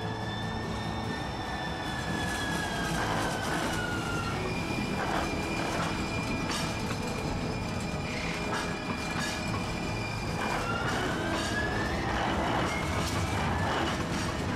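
Streetcar running on rails. Its wheels squeal in long high tones that rise and fall, over a steady rumble with clicks from the track.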